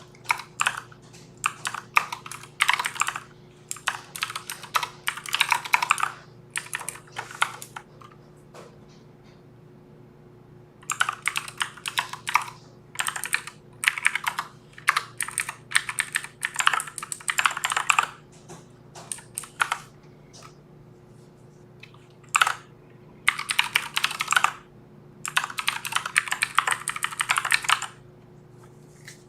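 Typing on a computer keyboard: bursts of rapid key clicks with pauses of up to about three seconds between them, over a faint steady hum.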